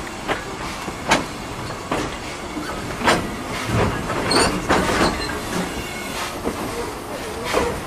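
Steam-hauled passenger coaches rolling slowly past, their wheels knocking irregularly over rail joints, with a brief high squeak about four seconds in.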